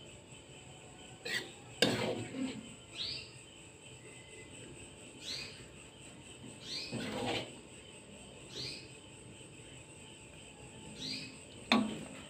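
A metal ladle scraping and clinking against a wok and a ceramic plate as stir-fried vegetables are spooned out. A few sharp clinks, the loudest about two seconds in and another near the end, and several short rising scrapes a couple of seconds apart.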